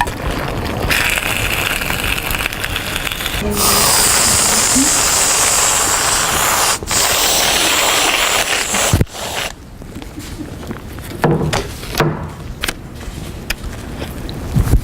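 Loud snack eating: crunching and crinkling of snack packaging, in several abruptly cut stretches with scattered sharp crackles near the end.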